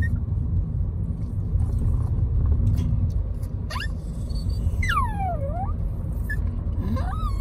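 Steady low road rumble inside a moving car, with a mini Maltese in a mesh pet carrier whining: a high whine slides down about five seconds in, and another rises near the end. The dog is unhappy with the car ride.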